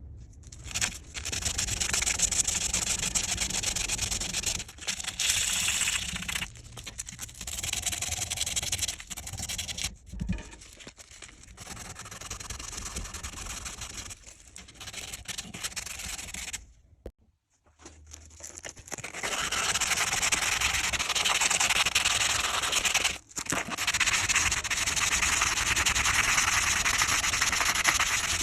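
Abrasive sanding on a pair of scissors being restored, a dense scratchy rubbing in several stretches broken by abrupt cuts.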